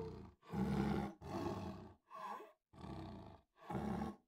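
Lion giving a series of five short, deep grunting roars, each about half a second long, with brief silences between them.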